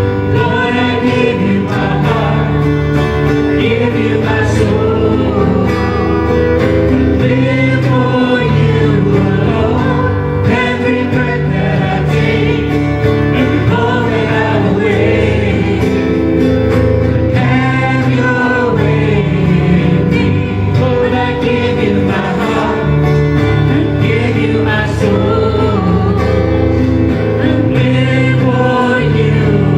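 Live gospel worship music: voices singing together over a band with guitar and a steady bass line.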